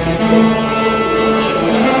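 Church orchestra and band playing an instrumental overture, holding long sustained notes in several voices.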